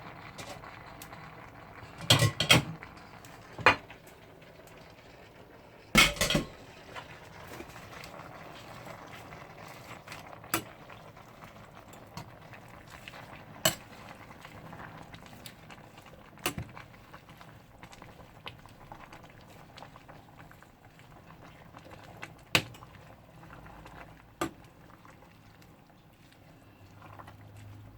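Pot of mung bean and spinach stew boiling, with a spoon clinking and knocking against the pot every few seconds as it is stirred; the loudest knocks come about two and six seconds in.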